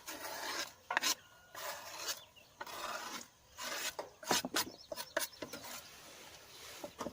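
A series of rasping, scraping strokes, about one a second, followed from about four seconds in by several short sharp clicks.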